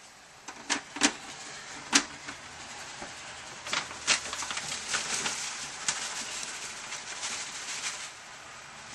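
Plastic food dehydrator trays clacking, with three sharp knocks as they are lifted and set down in the first two seconds. Then a paper bag rustles and fresh hop cones patter onto a tray, with small clicks, easing off near the end.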